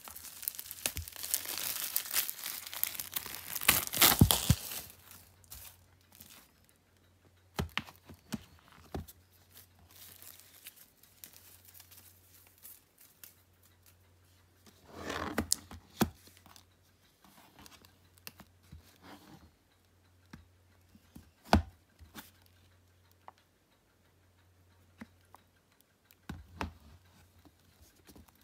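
Packaging of a Blu-ray box set being torn open and handled: a long tearing rustle at first, loudest about four seconds in, then scattered crinkles and handling clicks, with a sharp snap about three-quarters of the way through.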